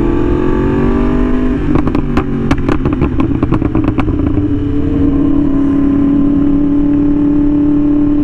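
Yamaha R1M's crossplane inline-four with a slip-on exhaust climbing in revs, then a quick run of about a dozen sharp pops and crackles from the exhaust as the throttle closes. It then settles into a steady cruising note.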